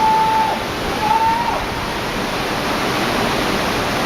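Tsunami floodwater rushing through the area, a loud, steady noise of moving water. A thin, steady high tone sounds over it for the first second and a half, broken briefly about half a second in.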